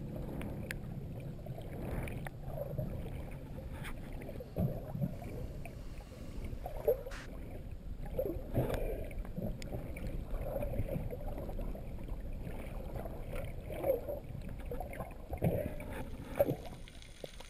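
Sea water sloshing and splashing around a camera held just under the surface, in irregular swishes with a few sharp clicks.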